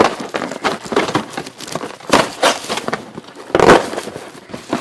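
A cardboard TV-dinner box being torn open by hand: a run of crackling rips and rustles, loudest about two and three and a half seconds in.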